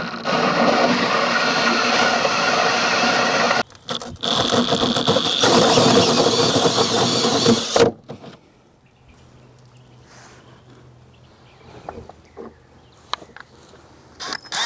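Cordless DeWalt drill driving a 2.5-inch hole saw through the boat's aluminum deck, running in two spells with a short break about four seconds in, then stopping suddenly about eight seconds in. After that only faint clicks from handling the drill.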